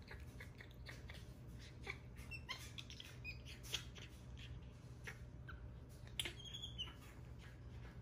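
Capuchin monkeys giving faint, high-pitched squeaks and chirps, short and scattered irregularly, over a low steady hum.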